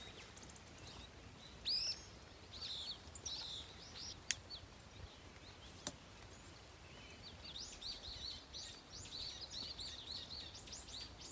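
Small birds chirping in short, high calls, a few scattered at first and then a quick run of them in the last few seconds. Two sharp clicks sound about four and six seconds in, over a faint steady background noise.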